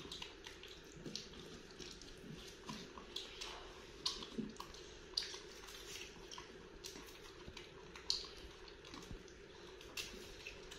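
Faint, irregular wet clicks and smacks of jackfruit being eaten and its sticky flesh pulled apart by hand, over a steady low hum.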